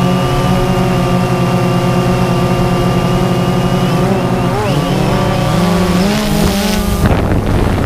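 Quadcopter drone's motors and propellers whining at a steady pitch, then wavering up and down in pitch from about four seconds in as the drone turns. Wind buffets the microphone near the end.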